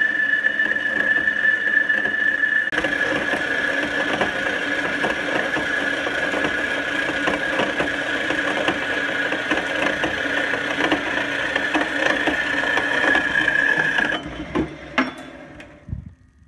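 Horizontal metal-cutting band saw cutting through mild steel plate, the blade giving a steady high squeal over the running motor. About fourteen seconds in the sound drops off sharply, followed by a few knocks.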